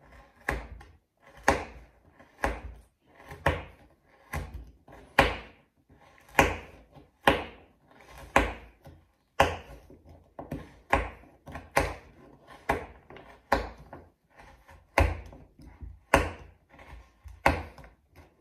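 Kitchen knife chopping a Toblerone chocolate bar into small pieces on a wooden cutting board: a sharp knock as the blade strikes through to the board, about once a second.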